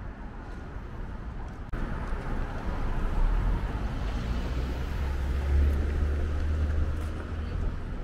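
City street traffic noise, with a passing vehicle's low engine rumble swelling up and easing off. The background steps up abruptly about two seconds in.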